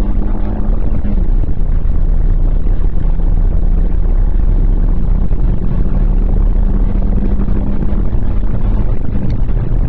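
Renault Clio II 1.6 16-valve four-cylinder engine running under way, over heavy low rumble of wind and road noise. Its pitch drops once about a second in, then holds fairly steady.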